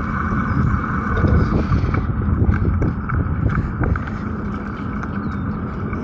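Wind buffeting the microphone and tyre noise from a bicycle being ridden, a steady rushing rumble with a few small clicks and rattles.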